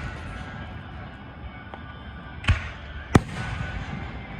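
Fireworks shells bursting in the air: two loud booms about two and a half and three seconds in, less than a second apart, each trailing off in an echo.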